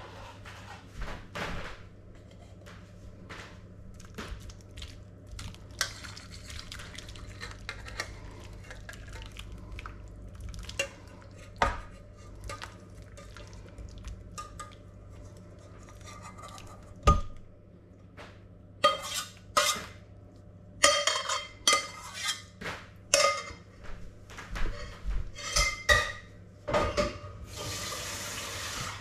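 Sweet and sour sauce being poured from a saucepan over pork in a metal roasting tray: scattered clinks and knocks of metal cookware, becoming a quick run of sharp knocks in the last ten seconds. A brief hiss comes near the end, over a steady low hum.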